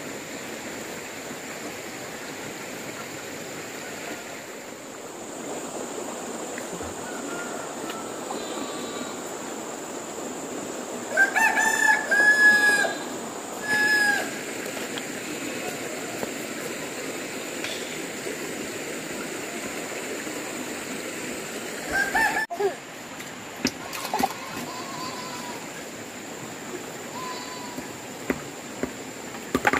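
A rooster crowing loudly about eleven seconds in, over a steady background hiss of running water, with a few sharp knocks later on.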